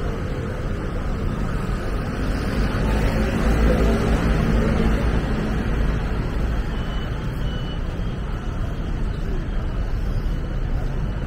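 City street traffic: a motor vehicle passes close by, its engine and tyre noise swelling to the loudest point about three to five seconds in, over a steady traffic hum.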